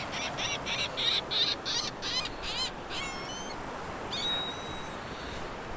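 Birds calling: a rapid run of high, repeated calls, about four a second, for nearly three seconds, then a few shorter separate calls. Under them is a steady hiss of surf and wind.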